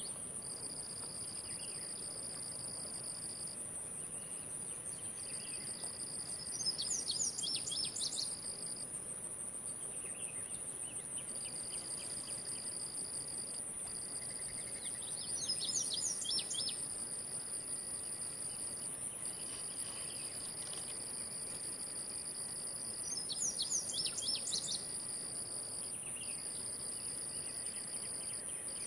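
Insects trilling: a continuous very high drone, with a lower trill that stops and starts every few seconds. A bird sings a short burst of chirps three times, about eight seconds apart.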